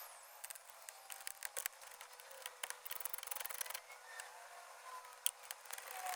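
Faint, irregular clicks and light scraping of a hand tool working out the radio's mounting screws in a car dashboard, with a quicker run of clicks about three and a half seconds in.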